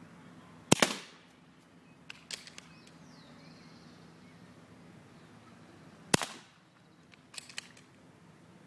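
Air rifle firing twice, a sharp crack about a second in and another about six seconds in, each followed a second or so later by a few fainter clicks.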